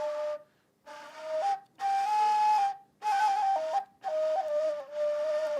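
A breathy, flute-like melody played in short phrases of held notes that step up and down, with brief pauses between the phrases.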